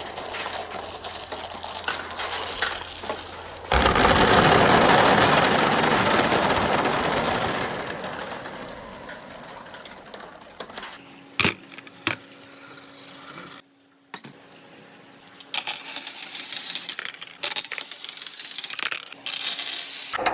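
Many marbles rolling and clattering through a marble-run track. A dense rush of marbles starts suddenly about four seconds in and dies away over several seconds. After a few separate clicks and a brief near-silent break, a second stretch of busy clattering follows.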